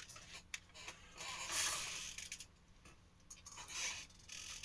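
Plastic CD jewel case handled and turned over: a few light clicks, then a soft scraping rustle about a second in, and another near the end.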